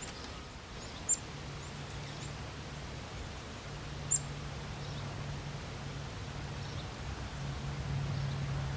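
A bird gives two short, high chirps about three seconds apart, over a low steady hum and outdoor background noise.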